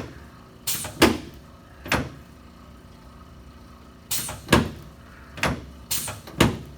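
About eight sharp knocks and clacks from a chiropractic treatment table as the lower spine and sacroiliac joint are adjusted. Some come in quick pairs, with a lull of about two seconds in the middle.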